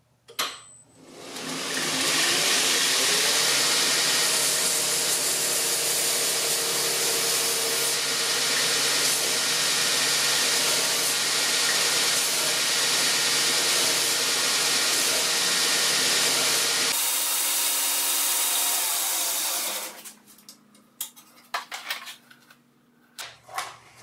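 Black Fox Knife Works ONE PRO 2x72 belt grinder with its surface grinder attachment switched on, spinning up about a second in and running loud and steady while the abrasive belt takes a cut across a knife tang to taper it. Near the end it is switched off and winds down over a few seconds, followed by a few clicks and knocks.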